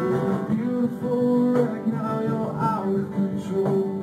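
A band playing live acoustic music: a song's instrumental lead-in carried by strummed acoustic guitar.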